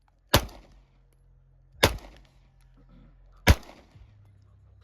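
Three pistol shots from a .40-calibre Glock, about a second and a half apart, each a sharp crack trailing off into a short echo.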